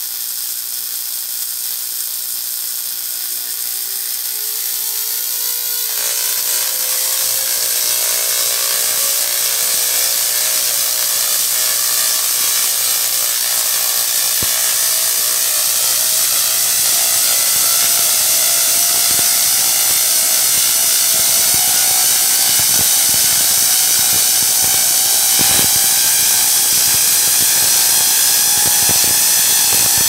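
Microwave-oven-transformer-powered spark-gap Tesla coil running. Its buzz rises in pitch over the first several seconds, then grows into a loud, crackling buzz of arcs and streamers, with sharp cracks from arc strikes more and more often toward the end.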